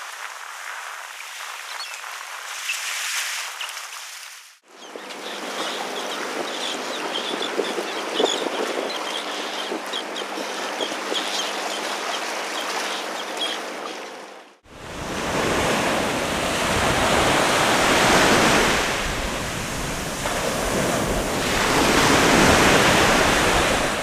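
Outdoor shore and sea sound in three stretches. First a soft airy hiss with a few faint bird calls. From about five seconds in, a feeding flock of terns calls in many short, high notes over a steady low engine hum. From about fifteen seconds in comes a loud rush of wind and surf that swells and eases, with wind buffeting the microphone.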